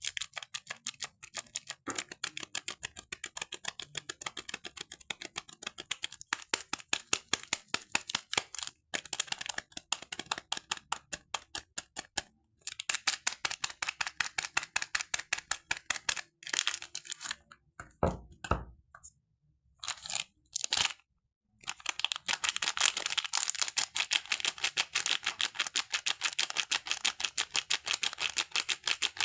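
Soap being peeled or shaved in thin layers: a rapid run of crisp, crackly strokes, about four or five a second, that breaks off briefly about two-thirds of the way through and then resumes.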